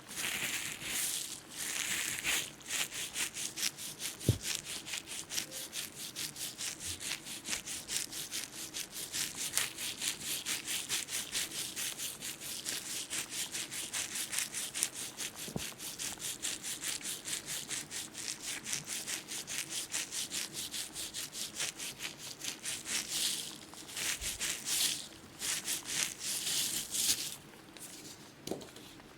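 ASMR ear-picking sounds: a tool scratching and rubbing close against a microphone's ear in a fast, even rhythm of about three to four strokes a second, turning slower and irregular near the end.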